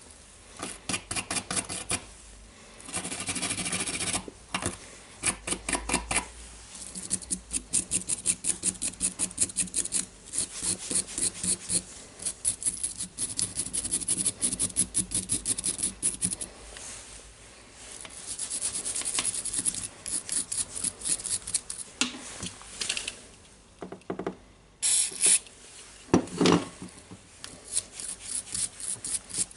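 A small wire brush scrubbing the dirty metal parts of an old Makita cordless drill's motor and switch assembly, in quick back-and-forth strokes several a second with short pauses. A couple of louder knocks come near the end as the parts are handled.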